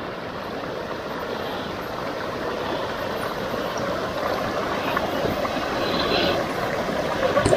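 Shallow stream rushing over rocks, a steady rush that grows slowly louder.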